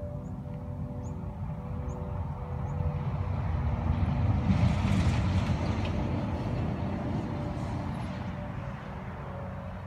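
A semi-trailer truck passing on a nearby road: a low rumble that swells to its loudest about five seconds in, then fades away.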